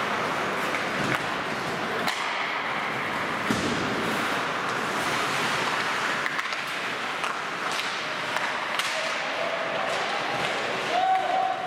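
Ice hockey play on a rink: skates scraping the ice over a steady hiss, with scattered sharp clacks of sticks and puck, and a shout near the end.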